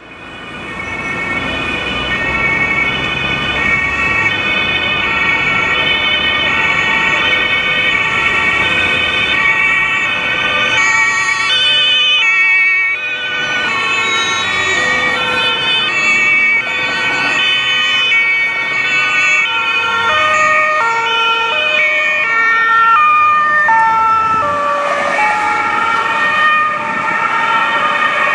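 Several German police two-tone sirens (Martinshorn) from a convoy of police vans sound at once, their alternating high-low notes overlapping out of step, over traffic noise. The sound fades in over the first second or two.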